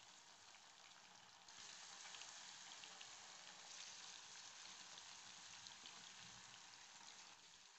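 Marinated anchovies (nethili) deep-frying in hot groundnut oil in a kadai: a faint, steady sizzle of bubbling oil that grows a little louder about a second and a half in.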